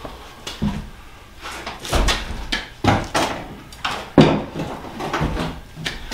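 A loose steel front fender being handled and fitted against a Studebaker's front end: a series of irregular knocks and clunks, the loudest about four seconds in.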